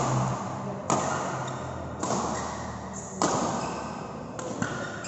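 Badminton rally: rackets strike the shuttlecock about once a second. Each sharp smack rings on briefly in a large hall, and the last two hits near the end are lighter.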